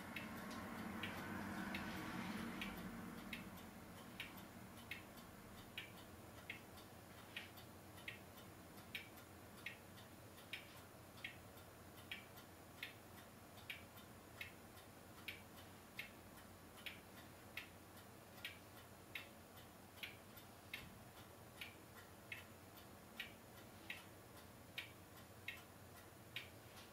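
Faint, evenly spaced ticking, about five ticks every four seconds, over low hiss. A louder muffled noise in the first three seconds fades away.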